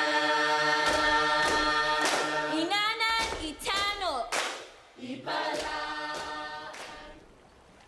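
A choir singing held chords, with sharp percussive strikes in between. There is a short break about five seconds in, then a last held chord fades out near the end.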